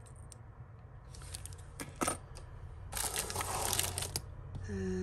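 Metal costume jewellery clinking as hands rummage through a pile of it: a few separate clicks, then about a second of dense jangling about three seconds in.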